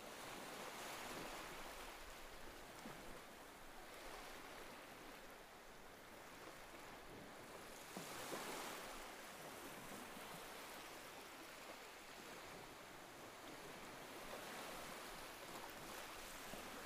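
Ocean surf: a faint, steady rush of breaking waves washing up the shore, swelling every several seconds as each wave comes in.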